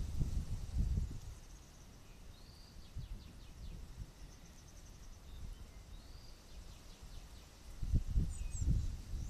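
Gusts of wind buffeting the microphone at the start and again near the end, under a gathering thunderstorm. In the lull between, a small songbird sings two short phrases, each a brief whistle followed by a rapid trill.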